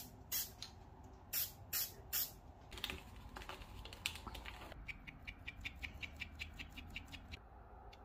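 Aerosol spray paint can sprayed in several short hissing bursts, then a quick, even run of light taps at about five a second.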